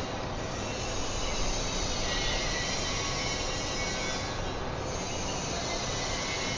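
Steady background machinery noise of a factory shop floor: an even, dense noise with faint steady tones running through it.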